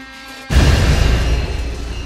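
Eerie music of sustained held tones, broken about half a second in by a sudden loud deep boom that rumbles on and slowly fades.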